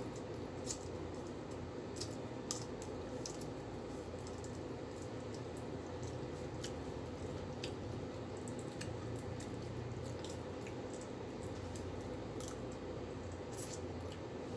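Close-up eating sounds: chewing, with irregular small clicks and smacks as food is picked apart and eaten by hand, over a steady low background hum.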